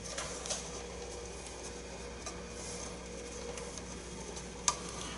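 Fingers handling a wooden dowel and snugging its thread wraps: faint rubbing with a few small ticks, and one sharper click about four and a half seconds in, over a steady low hum.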